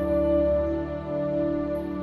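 Slow, calm new-age background music made of long held notes, with a new note coming in right at the start.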